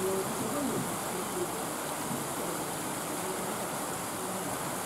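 Steady rushing background noise. Faint wavering voices come through it during the first second and a half.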